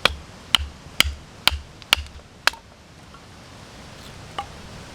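Batoning: a heavy wooden stick used as a baton strikes the spine of a knife to split a wet stick, six sharp knocks at about two a second, then one faint knock near the end.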